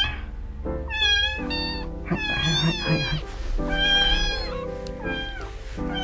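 Newborn kitten meowing in high, bending cries, about five of them, as it squirms against a milk bottle during bottle feeding. Background music runs underneath.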